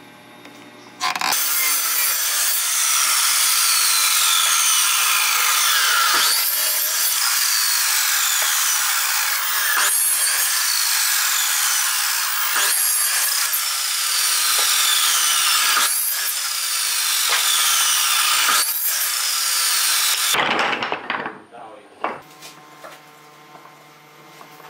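Sliding compound miter saw running and cutting pine strips in a series of crosscuts, its whine falling in pitch again and again as the blade winds down between cuts. It stops about twenty seconds in, leaving light knocks of wood being set down on a bench.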